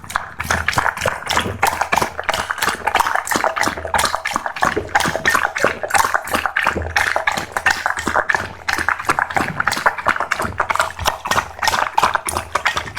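A dog eating noisily: rapid, irregular wet smacking and chewing clicks, many a second, without a break.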